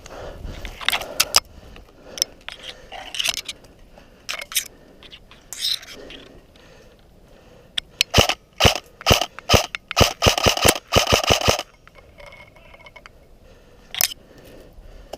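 Footsteps crunching and brush scraping as a player pushes through snowy woodland undergrowth. The noises come in irregular clusters and grow thick and fast for about three seconds past the middle, then thin out to a single crunch near the end.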